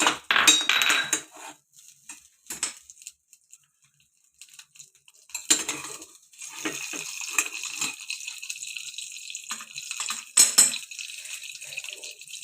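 Metal utensil clinking against a small pot, then from about five seconds in a steady high sizzle as butter melts in hot oil, with a few more clinks over it.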